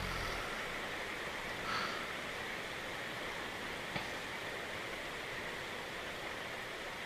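Steady rain-sound track, an even hiss, with the tail of a low snore fading out at the very start. A brief faint sound comes about two seconds in and a tiny click at about four seconds.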